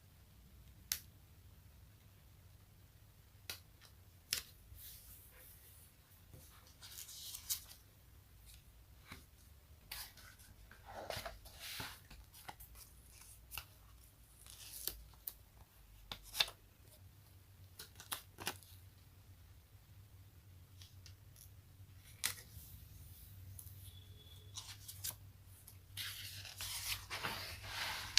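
Sticky pages being pulled apart and turned: scattered sharp snaps and short crackling peels, with a longer stretch of peeling and rustling near the end.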